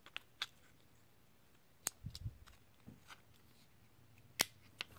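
Quiet room with a few scattered sharp clicks and a couple of soft low knocks; the loudest click comes near the end.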